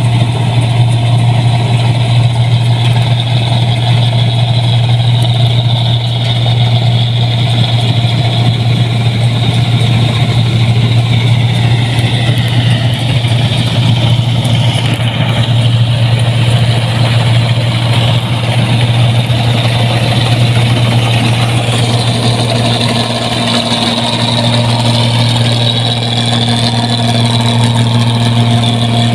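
Rice combine harvester running steadily under load, a loud engine hum with machinery noise over it; a steady higher tone joins in about three-quarters of the way through.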